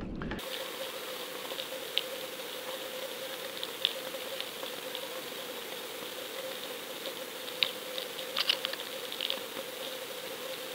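Underwater camera recording: a steady hiss with a faint steady hum, and scattered small clicks and crackles, a few louder ones about 2, 4 and 8 seconds in.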